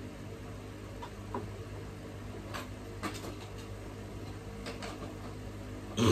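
Scattered light clicks and taps of hands working on a flat-screen television, over a steady low hum. A short, louder voice-like sound comes right at the end.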